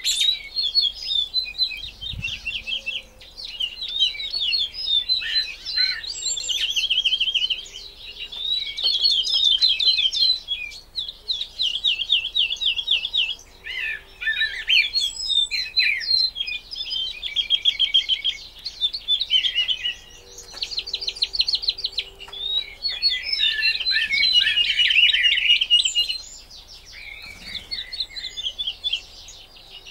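Woodlark singing: phrase after phrase of rapidly repeated, clear notes, each series a second or two long, with short pauses between.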